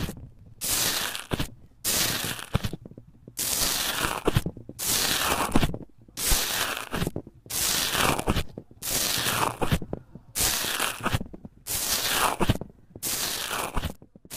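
Bubbly foam slime crackling as a small metal tool is pressed into it over and over: about a dozen presses, each a burst of crackle lasting most of a second, with short pauses between.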